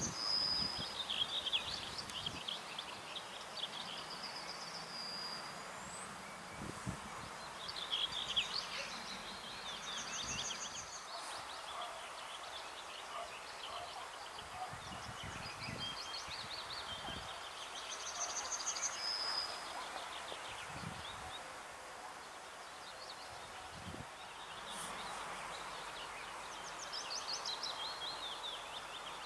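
Songbirds singing in short chirped and trilled phrases, several times through, over a steady outdoor hiss with a few soft low thumps.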